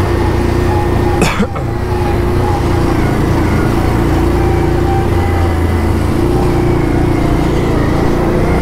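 ATV engine running at a steady, even pitch with a low rumble. There is a single short knock about a second in.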